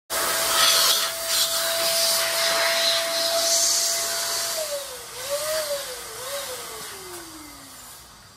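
Electric balloon pump running, blowing a loud rush of air into a latex balloon. A steady whine wavers and then slides down in pitch over the second half as the sound fades.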